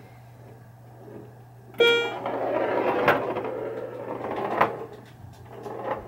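Bally Fireball Home Edition pinball machine in play, with a steady electrical hum. About two seconds in a short pitched tone rings and fades, then the ball rolls across the playfield with a couple of sharp clicks.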